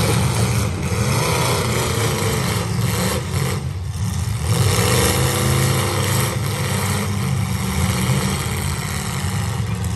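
Several demolition derby cars' engines running loud and revving together, the pitch rising and falling as the drivers push and ram in the dirt arena.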